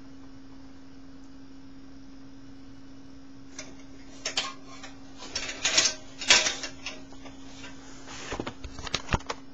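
Clattering and clacking from a homemade minigun prop built from hardware-store parts, in irregular bursts starting a few seconds in, loudest near the middle, over a steady hum.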